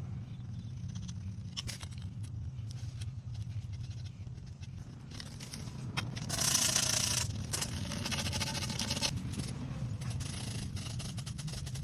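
Scraping and light clicking of metal plumbing parts being handled and screwed together: a threaded copper fitting and a hose bib going onto a copper pipe stub. A louder burst of hiss comes about six seconds in, over a steady low hum.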